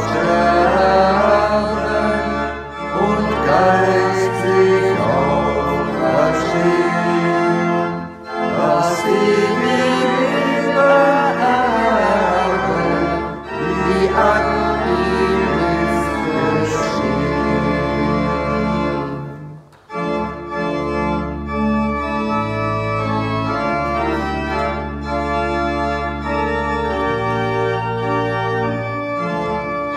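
Organ music: sustained chords over a held bass, with a moving melody line in the first part. There is a short break about 20 seconds in, then steadier held chords.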